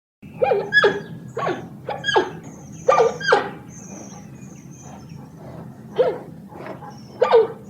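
Panda calling: a series of short calls that each drop in pitch, about six in quick succession, then after a pause of a couple of seconds a few more near the end.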